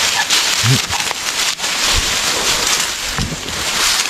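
Tall grass and leafy stems rustling and brushing against the camera as someone pushes through dense undergrowth, a steady scratchy rustle throughout.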